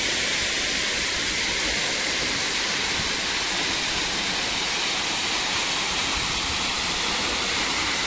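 Waterfall: mountain water pouring down without a break, a steady rushing hiss.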